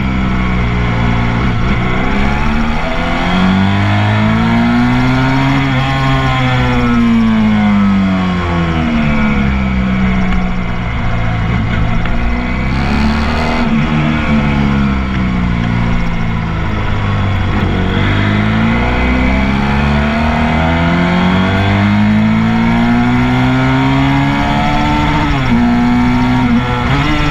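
Motorcycle engine recorded on board at track pace, its revs climbing and falling several times as the rider accelerates along the straights and slows for the corners.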